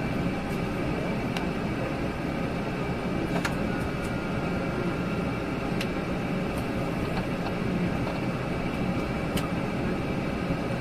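Steady hum and rumble from an ATR 72-600 turboprop airliner on the ground, holding at a constant level, with a few faint clicks.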